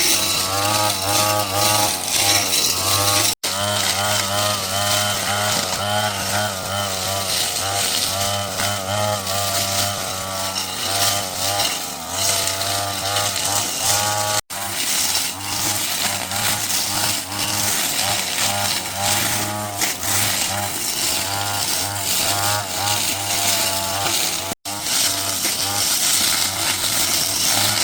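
Small petrol engine of a garden power tool running steadily, its pitch wavering up and down as the load changes. The sound drops out abruptly for an instant about three seconds in, near the middle and about three seconds before the end.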